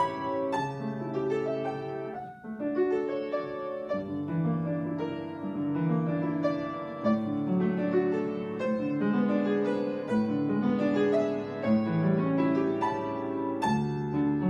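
Upright piano played solo: an étude in a continuous flow of quick notes across the middle of the keyboard, with a brief lull a little over two seconds in.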